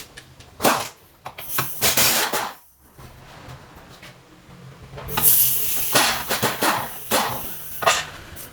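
Metal tools clanking and scraping while a car's front suspension control arm is unbolted. A run of sharp knocks comes with hissing noise, which gets louder about five seconds in.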